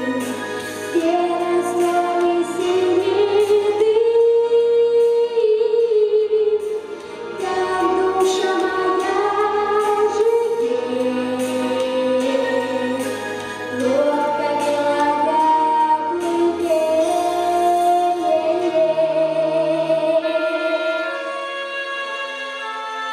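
A boy's high, unbroken voice singing a melody through a microphone over a backing track with bass and a beat. Near the end the bass and beat drop out and the music quietens as the singing stops.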